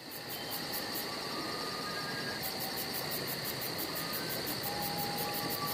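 Instrumental intro of a rap track: a hissing ambient texture with a steady high whine and a fast, even high ticking, like crickets at night, with faint short tones sounding here and there.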